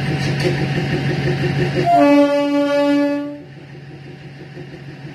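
Diesel-electric multiple unit's horn sounding one steady blast of about a second and a half, about two seconds in, over the steady drone of the train's diesel engine, which is quieter after the horn. The horn warns off a wild elephant standing on the track ahead.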